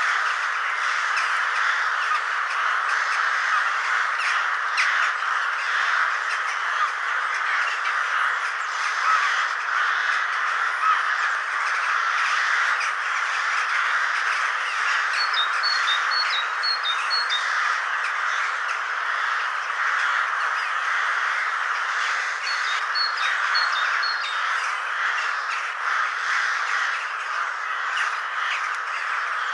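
Ravens calling over a dense, continuous chorus of other birds. A small bird adds a quick run of about five high chirps twice, around the middle and again about three-quarters through.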